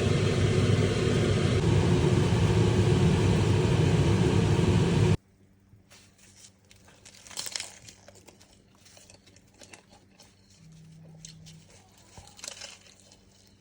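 Loud, steady sizzling of food frying in a pan, cut off abruptly about five seconds in, followed by faint scattered crinkling and crunching.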